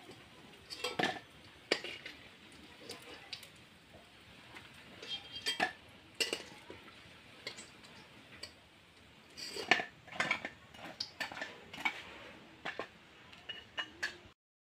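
A metal slotted spatula clinks and scrapes irregularly against a metal karai and a plate as fritters are lifted out of frying oil. The clinks bunch into short flurries and stop abruptly near the end.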